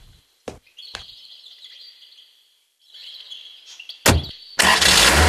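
Birds chirping with a few light clicks, then a Mercedes-Benz W124 saloon's door shut with a single thunk about four seconds in. Its engine starts half a second later and runs on.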